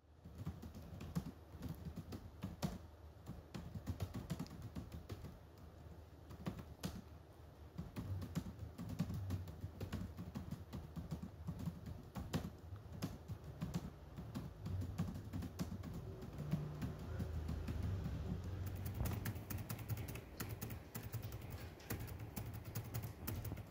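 Typing on a laptop keyboard: a quiet, irregular stream of key clicks over a low background rumble.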